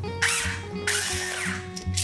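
Pepper mill grinding in two short twists over background music.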